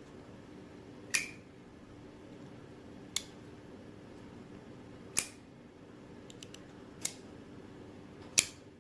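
Small folding knife's blade being repeatedly opened and snapped shut: five sharp metallic clicks about two seconds apart, with a few faint ticks between them.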